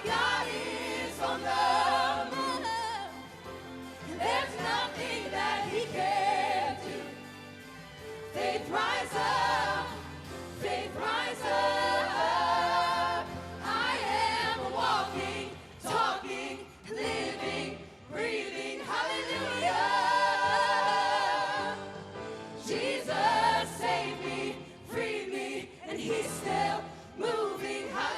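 Live worship music: a choir of singers and a band performing a gospel-style praise song, with long sung notes that waver in vibrato over a steady low accompaniment.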